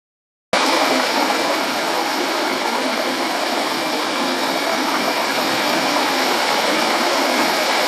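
An AI-generated sound effect: a steady, even rushing noise, like a running engine or machine, that starts abruptly about half a second in.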